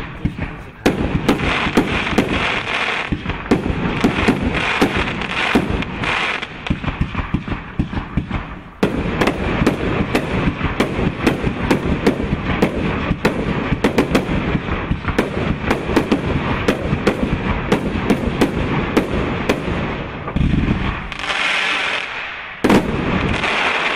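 Automatic firework cake (Pyramatic 152-shot, 30 mm calibre) firing shot after shot, several launches a second, over continuous crackling from bursting stars, with a few louder bursts near the end.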